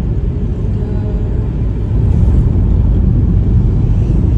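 Steady low rumble of a car in motion heard from inside the cabin: engine and road noise, getting slightly louder about two seconds in.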